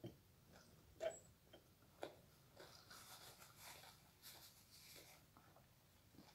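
Faint eating sounds at close range: a few soft clicks about a second apart, then a stretch of quiet rustling and chewing noise.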